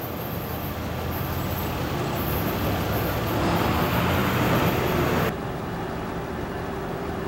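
Steady rumble of an approaching commuter train mixed with road traffic, swelling for a couple of seconds and then cutting off suddenly about five seconds in. A lower, steadier hum with a faint held tone follows.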